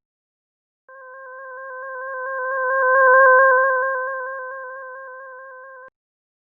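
Eerie-atmosphere sound effect: a synthesized chord of three steady tones with a fast tremolo, starting about a second in, swelling and then fading for about five seconds before it cuts off.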